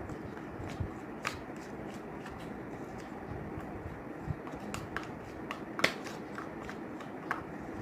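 Sticky homemade glue-and-baking-soda slime being stirred in a bowl: irregular small clicks and sticky pops, the loudest about six seconds in, over a steady hiss.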